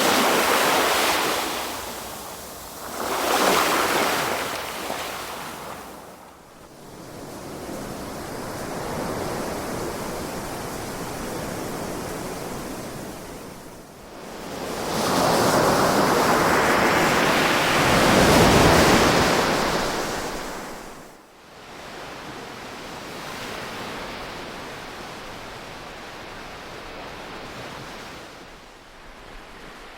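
Ocean waves breaking and washing in, rising and falling in swells: two surges near the start, a long, louder one a little past halfway, and a softer steady wash between them.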